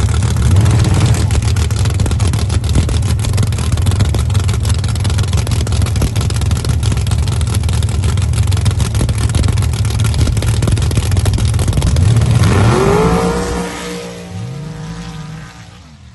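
Ford Ranger mud drag truck's race engine running loud and rough at the starting line, then launching about twelve seconds in and pulling away down the track, its pitch sweeping up and then falling as it fades into the distance.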